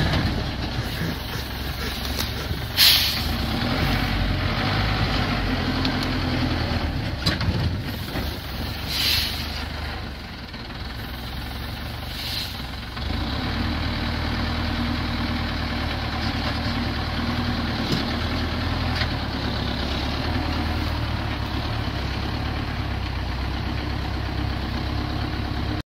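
Engine of a heavily loaded three-axle logging truck running as it crawls through mud, with short hisses of air from its air brakes about three, nine and twelve seconds in. The engine drops back around ten seconds and picks up again about thirteen seconds in.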